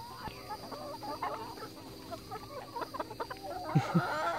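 A flock of hens clucking as they compete over tomato worms thrown in as treats, with short calls scattered throughout. The calls grow louder and busier near the end.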